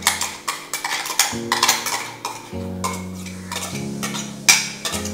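A metal spoon scraping and knocking against the inside of a stainless-steel mixer-grinder jar as ground paste is emptied into a pressure cooker. It makes an uneven string of clinks and scrapes.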